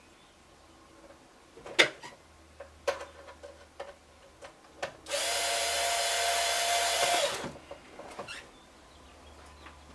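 A few clicks and knocks of a tool and parts being handled, then a power drill runs for about two seconds with a steady whine, driving a Phillips screw into the spotlight's housing.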